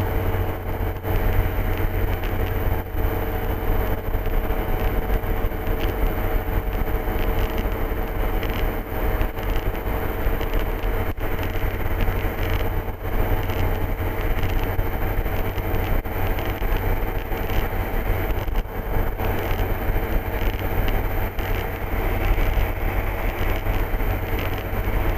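Ultralight aircraft's engine and propeller droning steadily inside the cockpit, with a few steady tones over a deep constant hum.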